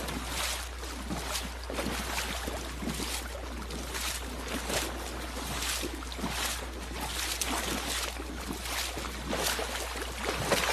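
Outdoor water and wind noise: a steady low rumble with irregular splash-like bursts.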